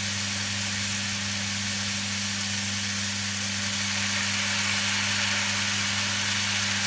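Pork belly cubes sizzling in a hot wok as vinegar is poured in, with a steady low hum underneath. The sizzle grows a little louder about four seconds in.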